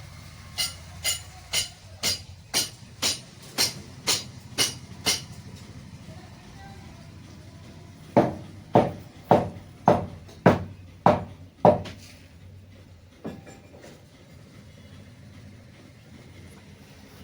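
Hammer blows struck at a steady pace of about two a second: a run of about ten sharp, ringing strikes, then after a short pause a run of about eight heavier, duller strikes, and one more blow near the end.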